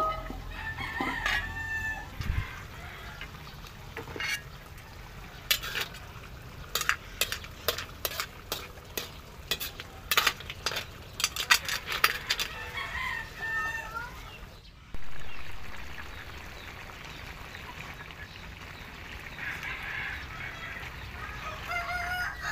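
A metal ladle stirring and scraping in a black iron wok of taro and snails in coconut milk, making a run of sharp clinks through the first half, while chickens cluck and a rooster crows in the background. About two-thirds of the way through, a steady hiss sets in abruptly.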